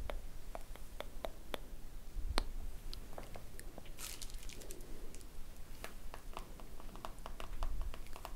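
Close-miked ASMR brushing: makeup brush bristles stroked over the microphone, giving scattered sharp crackles and clicks, with a brief hissing swish about four seconds in.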